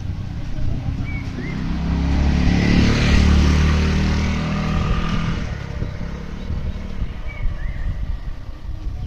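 A motor vehicle passes close by, its engine growing louder over the first three seconds and fading away by about six seconds in.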